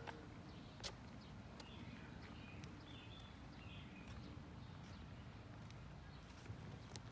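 Faint outdoor ambience on a residential street: a steady low rumble with a few faint high chirps and a couple of soft clicks.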